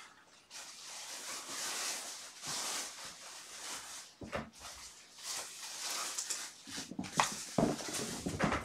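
Kittens scuffling and pouncing close to the microphone: rustling and scratching with scattered knocks, and louder thumps near the end.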